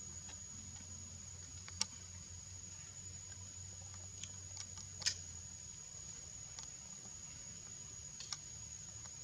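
Faint outdoor ambience of a steady, high-pitched insect drone, broken by a few sharp clicks, the loudest about five seconds in.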